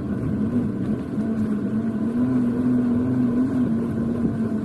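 A steady motor drone with one low, slightly wavering pitch that rises a little midway.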